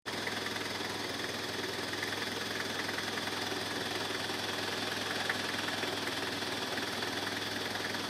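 An engine idling steadily: a constant hum with several steady tones and no change in pitch or level.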